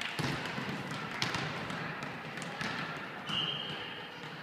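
Volleyballs being struck and bouncing on a hard gym floor: a few sharp smacks echoing in a large sports hall over a background murmur, with a short high squeak a little past three seconds in.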